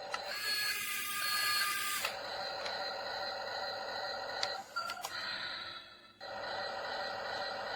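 Small electric motors and gearing of a toy RC wheel loader whirring steadily, louder and rougher for about two seconds at the start, with a few clicks about halfway through.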